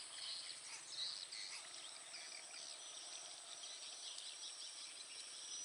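Faint swamp ambience: a steady high-pitched insect drone with scattered faint bird chirps.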